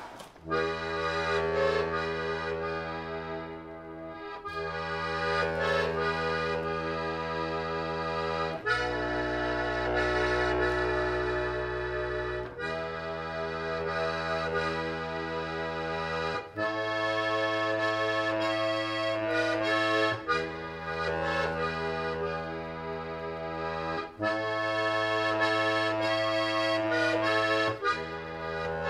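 Instrumental background music: a slow melody over held bass chords that change every four seconds or so.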